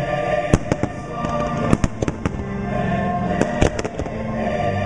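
Aerial fireworks shells bursting in a run of sharp, irregular bangs, about eight to ten in under five seconds, over loud sustained show music.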